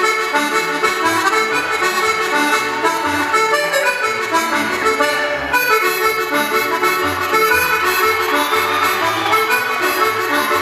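Irish traditional dance music with an accordion playing the tune at a steady dance tempo.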